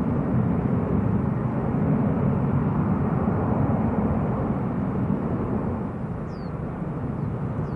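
Distant jet airliner on its takeoff run and climb: a steady low engine rumble that eases slightly after about five and a half seconds.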